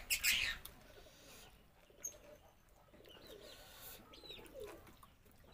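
Faint birds in the background: a few short chirps and a cooing dove. A brief noise of eating comes at the very start.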